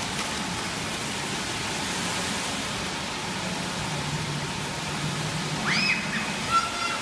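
Steady rushing background hiss with a faint low hum under it. About six seconds in, a child's voice glides up into a short, high call.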